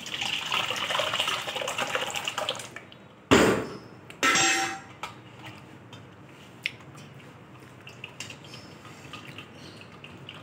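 Thick boiled plum pulp poured into a perforated steel colander, splashing and sloshing for a little under three seconds. Then comes a loud knock, then a ringing metal clank about a second later, followed by quiet small taps as the steel colander and bowl are handled.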